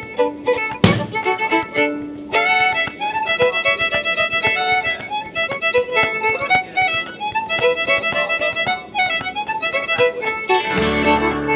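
Fiddle music playing melodic lines, with a couple of sharp knocks in the first few seconds.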